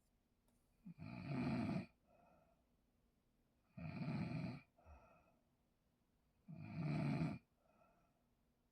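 A person snoring heavily: three snores a little under three seconds apart, each followed by a fainter, shorter breath out.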